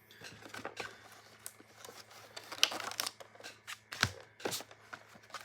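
Hands handling a trading-card product box and its packs: scattered taps, clicks and light rustles of cardboard and wrapping, with sharper clicks about two and a half and four seconds in.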